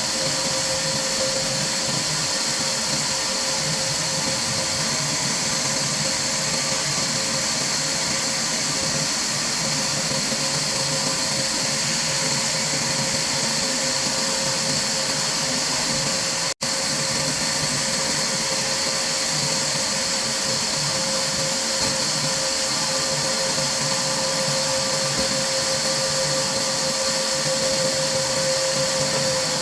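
Woodworking machinery running steadily: a constant whirring whine over heavy hiss, unchanging except for a split-second dropout just past the middle.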